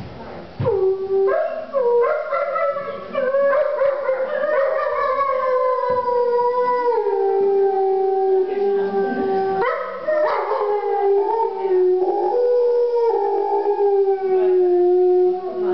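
A wolf howling: long drawn-out howls held on steady notes that step down in pitch, with a short break about ten seconds in.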